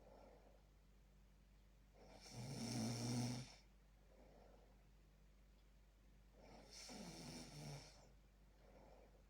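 A person snoring in sleep, close to the microphone: a loud snore about two seconds in and a softer one about seven seconds in, with faint breaths between, repeating every four to five seconds.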